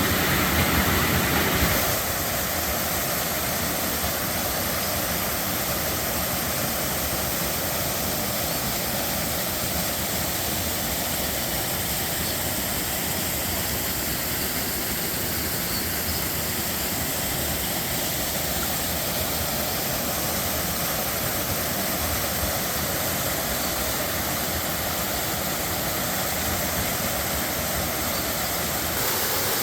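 Waterfall pouring with a steady, even rush of water.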